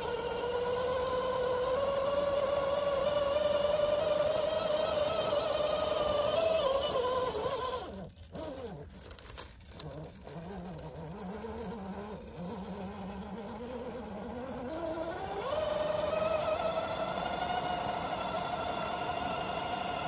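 Brushed electric motor and geared transmission of a 1/10 scale RC rock crawler whining as it climbs steep rock. The pitch rises slowly, drops sharply about eight seconds in to a low, wavering whine as the motor slows, then rises again a few seconds later.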